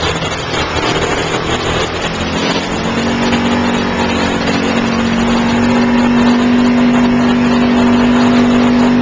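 Off-road 4x4 engine running steadily under load while driving through shallow river water, with splashing. Its pitch steps up about two seconds in and then holds.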